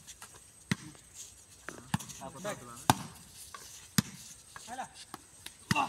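A volleyball being struck by players' bare hands during a rally: five sharp slaps of hand on ball, about a second apart, with players' short shouts between them.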